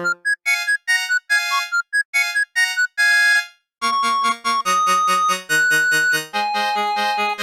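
Samsung SCH-X250 mobile phone ringtones played back as MIDI on a synthesizer. A quick run of short, staccato notes stops about three and a half seconds in. After a brief silence, another tune starts with held notes over a pulsing bass.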